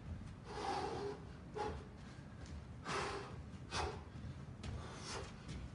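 A boxer's short, sharp breaths forced out in time with his shadowboxing punches, a burst of breath every second or so.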